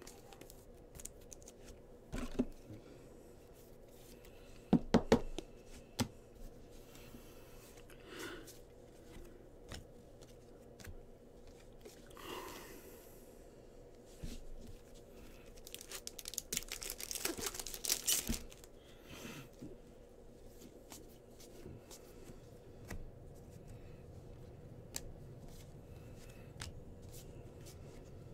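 Bowman Baseball card packs being torn open and the cards handled: a stretch of wrapper tearing and crinkling a bit past halfway, the loudest part, with scattered light taps and clicks throughout and a few sharper knocks about five seconds in.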